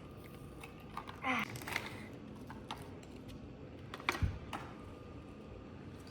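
Plastic packaging of a squishy toy being handled and opened: scattered small crinkles and clicks, with a louder knock about four seconds in.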